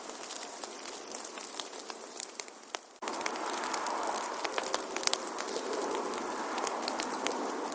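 Wood fire crackling, with frequent sharp pops and snaps over a steady hiss of burning. About three seconds in, the sound dips and then cuts abruptly to a louder, fuller rush of flames, still crackling.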